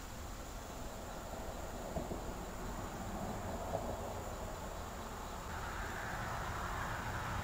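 Steady outdoor background noise with a low hum and an insect-like hiss; a broader hiss swells in over the last couple of seconds.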